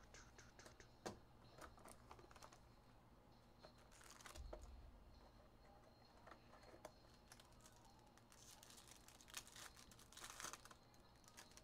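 Faint crinkling and rustling of foil trading-card pack wrappers and cardboard box flaps being handled and torn open, with light clicks in a few short spells, busiest near the end.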